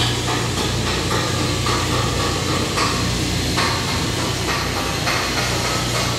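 Flux-cored arc welding crackling and sizzling steadily, over a steady low hum.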